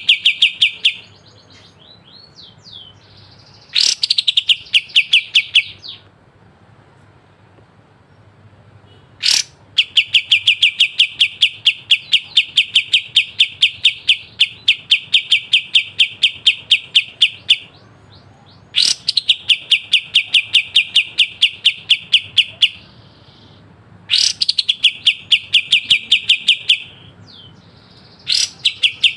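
Kapas tembak singing its sharp, rapid trill (besetan): repeated bursts of quick, evenly spaced notes at about seven a second, each burst opening with a rising note and lasting two to eight seconds, with short pauses between them.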